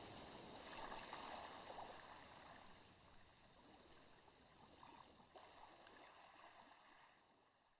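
Near silence: a faint hiss-like wash that slowly fades away toward the end.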